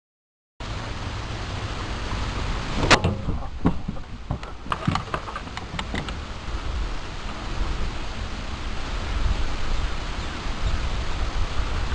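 Steady rumbling noise on a small action-camera microphone outdoors, heavy in the low end, with a run of sharp knocks and clicks between about three and six seconds in, as the caught fish and tackle are handled on the boat's carpeted deck.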